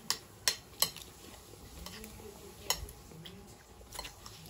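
Kitchen utensils knocking and clinking, as in cutting food by hand: three quick sharp knocks in the first second, then a few single ones spaced out.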